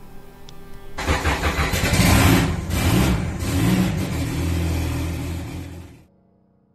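A car engine starting and revving, a produced sound effect under an animated channel logo. It starts suddenly about a second in and cuts off near the end.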